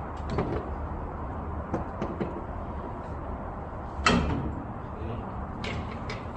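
Metal knocks and clicks from the front suspension as the jack is let down to ease the tension off the coil spring, with one sharp clunk about four seconds in, over a steady low hum.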